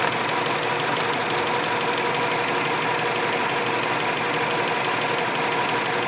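2011 Dodge Avenger's 2.4-litre four-cylinder engine idling steadily under the open hood, an even, unchanging run.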